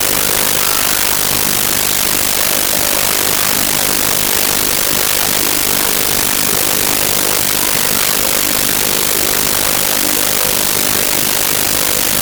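Loud, steady hiss of audio-track noise, strongest in the highs and unchanging throughout: a faulty recording whose sound is all static.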